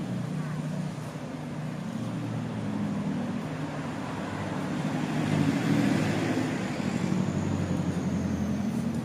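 Street traffic: vehicle engines running on the road alongside, a steady hum that grows louder about halfway through as a vehicle passes.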